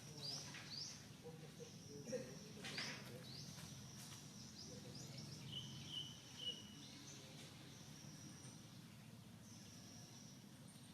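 Faint, high-pitched animal chirps and squeaks over a low hum: several quick downward-sweeping calls in the first few seconds, then a few short thin tones around the middle.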